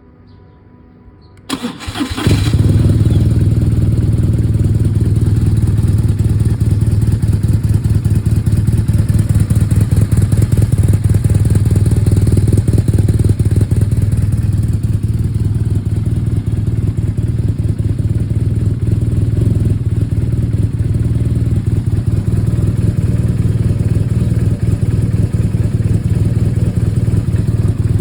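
BMW R1200R's air/oil-cooled boxer twin cranked on the starter, catching about two seconds in, then idling steadily with small brief dips. The owner reports the idle as rough, with misfires.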